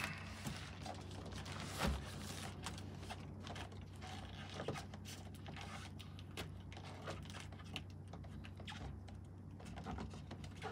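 Plastic wrap and packing tape on a cardboard shipping box crinkling and crackling as hands pick and pull at it, in scattered small clicks, with a single thump about two seconds in.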